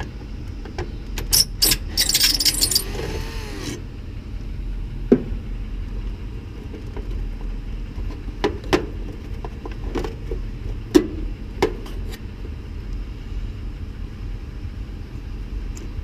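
Milwaukee M12 cordless drill-driver whirring for about two seconds as it drives out a panel screw, its pitch rising and falling. After it, a scattering of sharp clicks and knocks as wire connectors are worked off the run capacitor's metal terminals.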